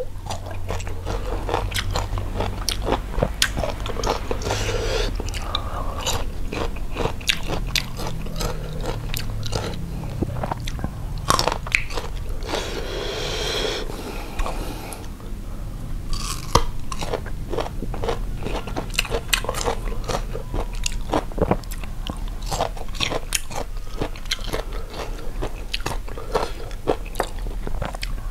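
Close-miked biting and chewing of crunchy unripe green mango dipped in chili salt: a dense, steady run of crisp crunches and chews, with a short hiss about thirteen seconds in.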